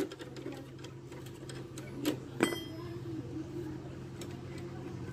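Light metallic clicks from hands and tools working on a motorcycle's rear drum brake, with one sharper ringing clink about two and a half seconds in, over a steady low hum.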